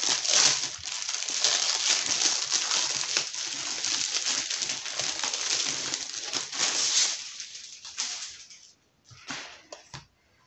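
Clear plastic packaging crinkling and rustling as a large A3 portfolio is pulled out of its plastic bag. The crinkling dies away about eight seconds in, leaving a few light ticks.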